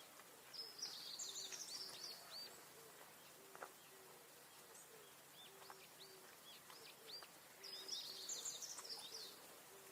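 Faint outdoor birdsong: a rapid, high, warbling song phrase sung twice, about half a second in and again near the end, among scattered short chirps, with a low soft note repeating throughout.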